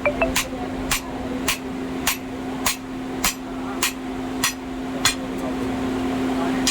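Hammer blows on a metal workpiece being beaten thinner in forging, about ten even strikes at roughly one and a half a second, stopping about five seconds in. A steady machine hum runs underneath.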